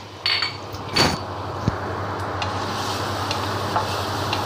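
Minced garlic sizzling in hot oil in a nonstick frying pan, a steady frying hiss, with two sharp knocks in the first second and a wooden spatula stirring near the end.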